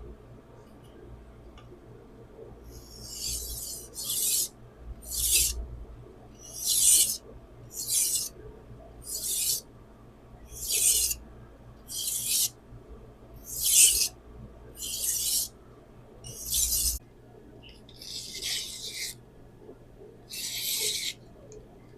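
Rasping strokes across a Naniwa Chosera 600-grit whetstone, about thirteen of them at roughly one a second, starting a few seconds in.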